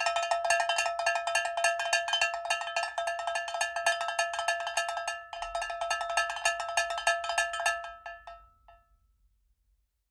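A small metal bell-like object struck rapidly and repeatedly, each strike ringing on the same fixed set of metallic tones; the strikes stop about 8 seconds in and the ringing fades out a second later.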